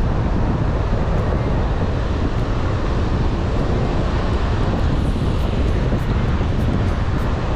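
Wind buffeting the microphone: a steady, loud, low rumble with no breaks.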